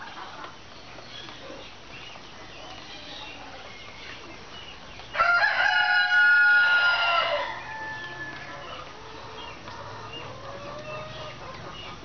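A rooster crows once, a single call of about two seconds starting about five seconds in, over a faint background.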